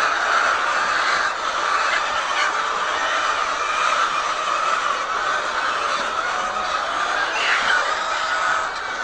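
A large flock of laying hens clucking and calling, many overlapping voices in a steady, dense chorus.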